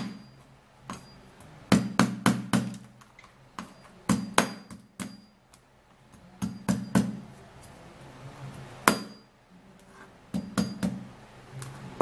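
The butt of a steel kitchen knife's handle knocking garlic cloves against a plastic cutting board, crushing them to loosen the skins for peeling. The sharp knocks come in short clusters every second or two.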